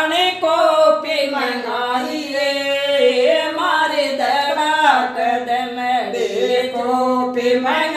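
Two women singing a traditional Rajasthani folk song together without accompaniment, in a continuous line of long, held, wavering notes.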